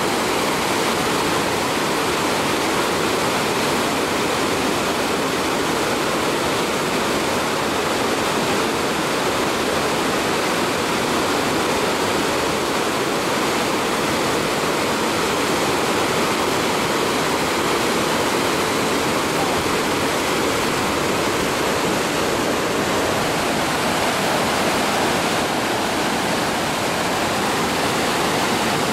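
Muddy floodwater cascading over a low drop, a steady, unbroken rush of churning water.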